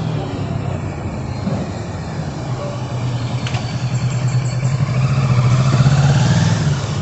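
A motor vehicle engine running steadily, swelling louder with a rising whine about four to six seconds in, then easing off.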